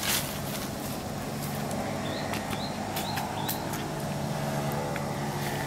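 An engine running steadily, a low even hum, with a few short high chirps around the middle.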